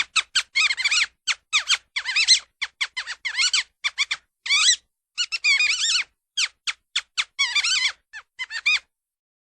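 Cartoon squirrel vocal effects in the style of Scrat: a rapid, irregular string of short, high squeaks and chitters. Each one bends up and down in pitch, with short gaps between them.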